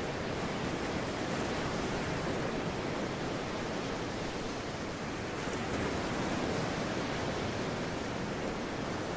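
Ocean surf breaking and washing over a rock shelf: a steady rush of churning water that swells slightly a couple of times.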